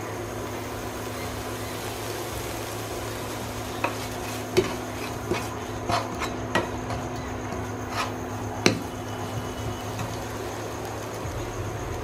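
Slotted spatula stirring and scraping paste around a nonstick frying pan. It strikes the pan in a series of sharp clacks between about four and nine seconds in, over a steady hum.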